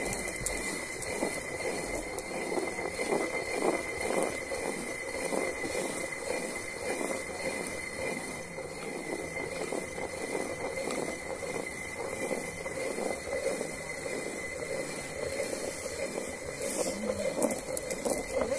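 Hand-turned stone quern grinding rice into flour: the heavy upper millstone is rotated steadily on the lower one, giving a continuous gritty grinding of stone on stone and grain.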